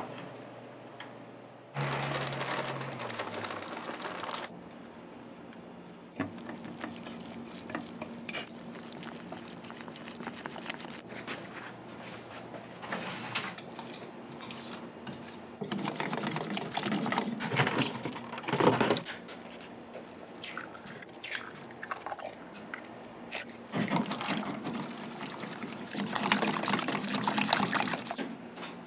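Water pouring into a stainless steel bowl, and a wire whisk beating okonomiyaki batter against the bowl in spells, with clinks and a steady low hum.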